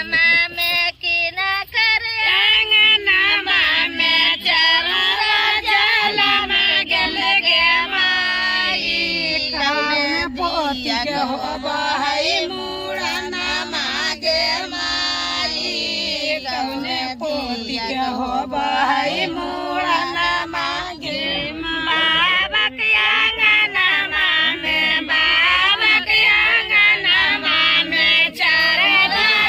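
High women's voices singing a song, held without a break.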